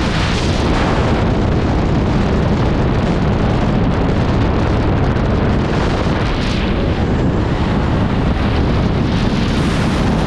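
Heavy wind rush buffeting the microphone from a moving pickup truck at highway speed, with road and engine noise underneath; a steady, loud roar.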